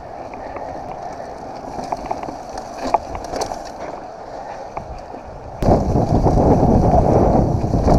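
Mountain bike riding over a leaf-covered dirt singletrack, heard from a handlebar-mounted camera: tyre noise with a few light clicks and rattles from the bike. A little past halfway it suddenly turns into much louder rumbling wind noise on the microphone.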